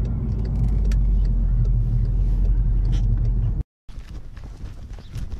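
Steady low road rumble inside a moving car's cabin. About three and a half seconds in it cuts off abruptly, and quieter outdoor sound with light footsteps on pavement follows.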